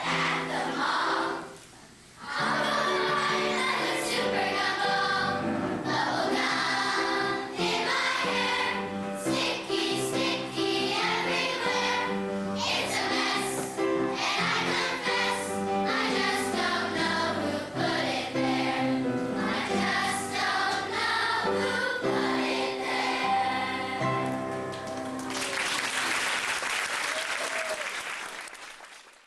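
Choir singing a song with accompaniment, ending about 25 seconds in, followed by audience applause that fades out.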